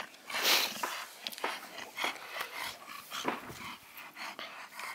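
American bully dog panting hard, quick uneven breathy gasps about two a second, the loudest just under a second in.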